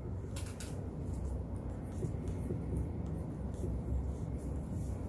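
Felt-tip marker strokes squeaking and scratching faintly on a whiteboard, the clearest pair about half a second in, over a steady low room rumble.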